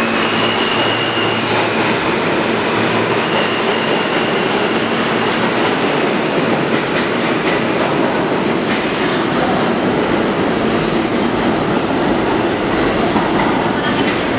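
R160 New York City Subway train pulling out of the station into the tunnel: a loud, steady rumble of steel wheels on rail with some clatter over the rail joints, and a thin high whine in the first few seconds.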